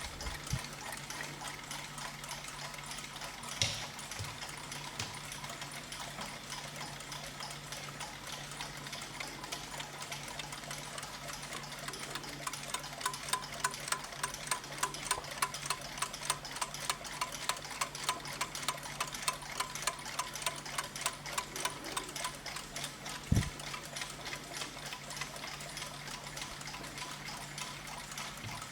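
Mechanical clocks ticking in fast, even, overlapping ticks. A louder, brighter tick stands out for about ten seconds in the middle. A low steady hum sits under the ticking, with a single sharp click early and a dull knock near the end.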